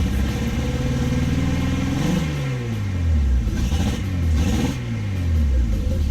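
Datsun 280Z's inline-six engine running through a newly fitted custom exhaust with a muffler, idling and blipped twice: the revs jump about two seconds in and again around four seconds, each time falling back to a steady idle. The note is smoother than the open pipe it replaced.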